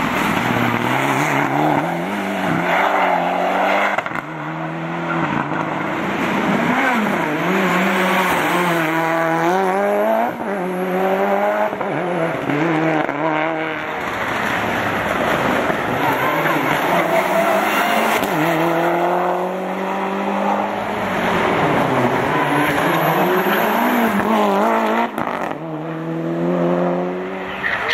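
Rally cars, among them Mitsubishi Lancer Evolutions, driven hard through tarmac bends one after another: engines revving up and dropping back again and again through gear changes, with some tyre squeal.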